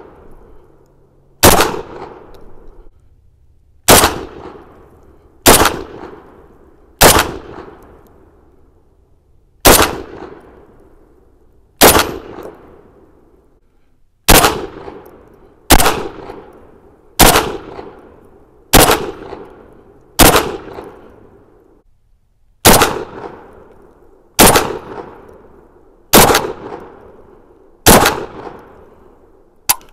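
Rock Island Armory VR80 semi-automatic 12-gauge shotgun firing about sixteen single shots at a steady pace, one every couple of seconds. Each blast is loud and sharp and trails off in a brief echo.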